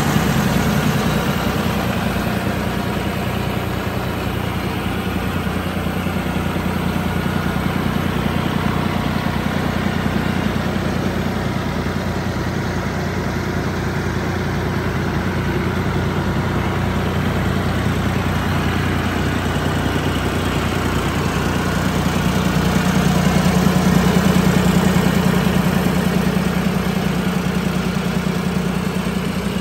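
John Deere 5075 tractor's diesel engine idling steadily, getting louder for a few seconds about three-quarters of the way through.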